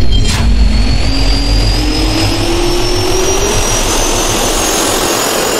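Jet engine spooling up, as a logo-intro sound effect: loud rushing noise with two whines rising steadily in pitch, after a sharp hit just after the start.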